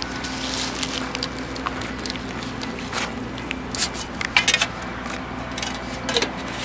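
Rubbing and scraping handling noise, like a coat brushing against the camera microphone, with scattered clicks and rustles over a steady low hum.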